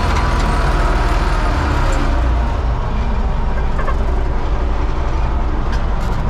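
Universal 650 tractor's four-cylinder diesel engine running steadily, a loud low drone.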